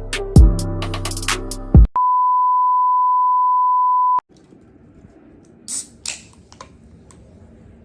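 Music with a drum beat that stops about two seconds in, followed by a single steady electronic beep tone lasting about two seconds that cuts off suddenly, then low room noise with a couple of faint brief noises.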